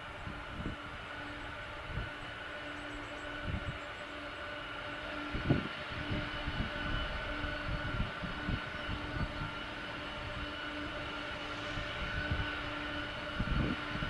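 Boeing 747-400 jet engines running at low thrust as the freighter taxis, a steady whine with a few constant tones. Gusts of wind rumble on the microphone.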